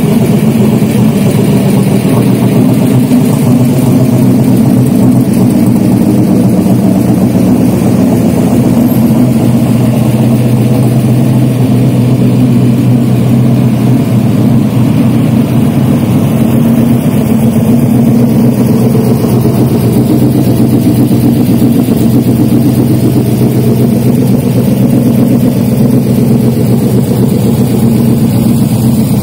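Shelby Cobra 427 S/C's big-block 427 V8 idling steadily through its side-exit exhaust pipes, a deep, even burble with no revving.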